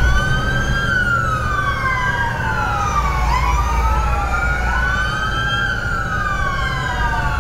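Several fire engine sirens wailing together out of step, each tone rising and falling over a few seconds, over a low engine rumble.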